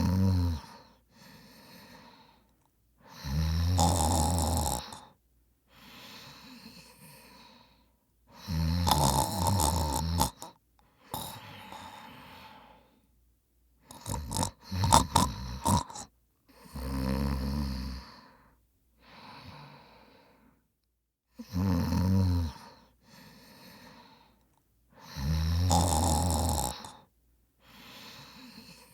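A person snoring in sleep: loud, low, rattling snores of about two seconds each, coming every four to five seconds, with softer breaths between them. Partway through, the rhythm breaks into a run of short, irregular snorts. The snoring is the vibration of a partly obstructed upper airway during sleep.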